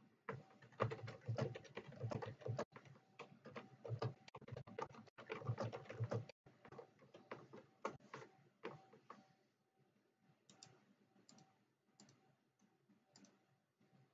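Typing on a computer keyboard: a quick run of keystrokes for about six seconds, then slower, scattered clicks.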